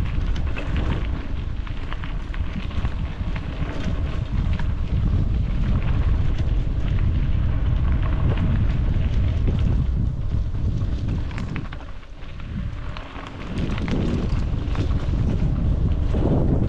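Wind buffeting a helmet-mounted GoPro microphone while riding a trail: a loud, rough low rumble with scattered rattling clicks. It drops briefly about twelve seconds in.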